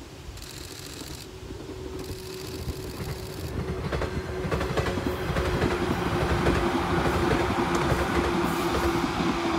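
WEST EXPRESS Ginga, a converted JR West 117-series electric train, passing at speed: a steady motor hum and the clickety-clack of its wheels over the rail joints, growing louder as the train draws near.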